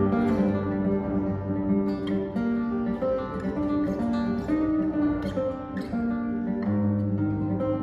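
Classical guitar played solo with the fingers: a continuous run of plucked notes over held bass notes.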